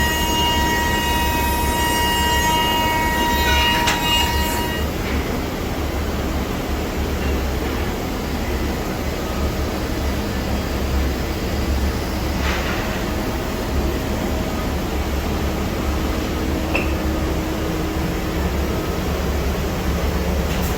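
Rover A Smart five-axis CNC router machining wood, a steady high whine from the spindle cutting, with loud machine noise underneath. The whine stops sharply about five seconds in, while the steady machine noise carries on.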